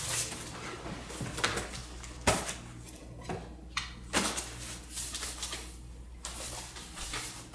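Handling sounds of packing: rustling, with a few sharp knocks of objects being set down or bumped, the sharpest a little past two seconds in and another about four seconds in.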